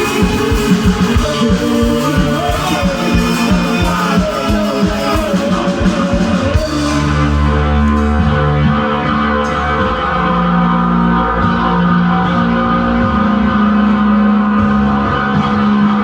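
Live rock band playing loud: fast, dense drumming under guitars for about the first six seconds, then the drums drop out and long, sustained low guitar chords ring on.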